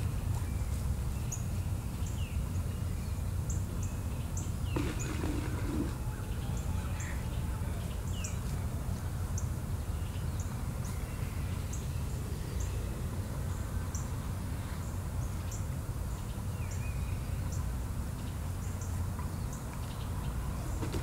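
Outdoor ambience: a steady low rumble with birds chirping now and then and many short, high ticks scattered throughout.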